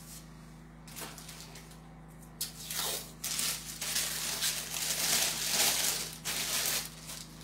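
Irregular rustling and crinkling of something being handled, starting about two and a half seconds in and lasting about four seconds. A faint steady hum runs underneath.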